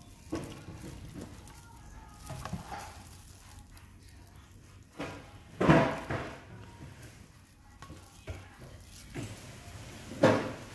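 Plastic spatula spreading and scraping thick white sauce across a glass baking dish, with two louder scrapes about halfway through and near the end.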